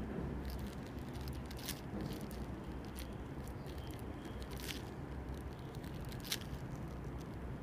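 Ballpoint pen writing figures on paper: scattered short scratches and taps of the pen tip over a low steady hum.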